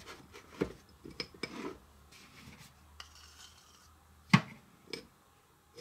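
A metal knife scraping and tapping against a small plate as chocolate frosting is spread on a cake, then a utensil clinking in a bowl as more frosting is scooped. Short scattered clicks and scrapes, with one sharp knock about four seconds in as the loudest.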